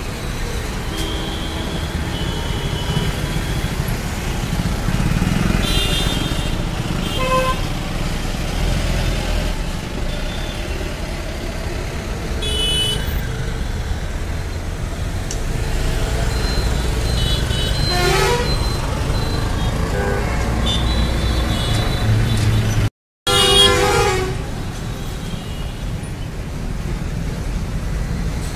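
Busy Indian road traffic: a steady rumble of vehicle engines and tyres, with vehicle horns honking again and again, some short toots and some longer blasts. The sound cuts out for a split second about two-thirds of the way through.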